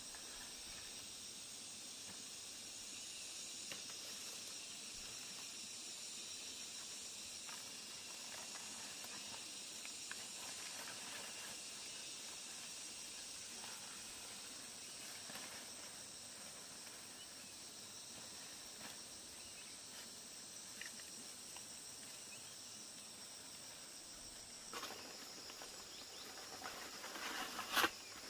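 Steady high-pitched drone of insects, with a few scattered light knocks and one sharper knock near the end.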